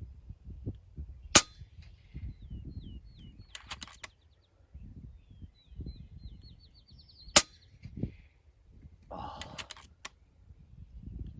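Two shots from an FX Impact M3 PCP air rifle, each a sharp crack, about six seconds apart, with a quick run of clicks between them as the action is cycled. Wind rumbles on the microphone and a bird chirps repeatedly in the background.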